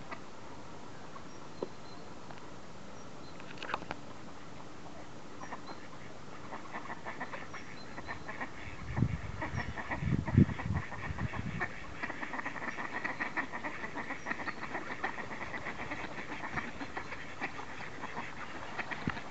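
A flock of mallard ducks quacking and chattering together, starting about a third of the way in and building into a steady din. A few low, loud thumps come about halfway through.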